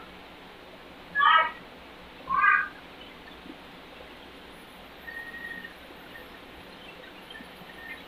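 A cat meowing twice, two short calls about a second apart in the first few seconds.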